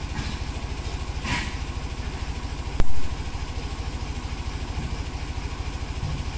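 Three-wheel road roller's diesel engine idling with an even, rapid chugging. A brief hiss comes about a second in, and a sudden sharp clank just under three seconds in is the loudest sound.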